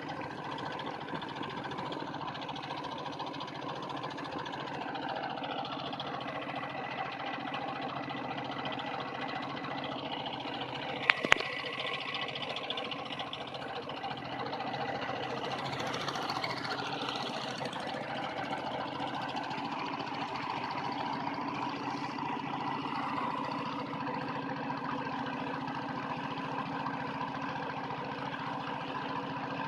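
An engine running steadily at an even speed, with one sharp click about eleven seconds in.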